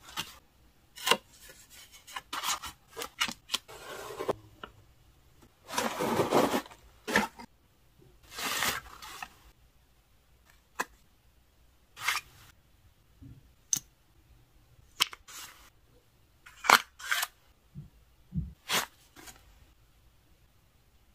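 Paper and card packaging being handled: an envelope and card rustling and sliding, with two longer rustles in the middle and many short sharp clicks and taps in between.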